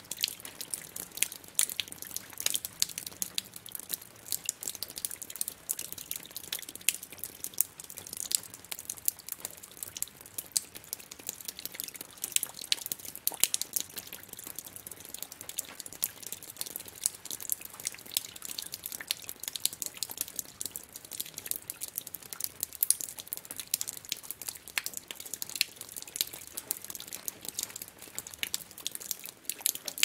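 Water dripping: many quick, irregular drops landing several times a second, with a sharp, crackly edge.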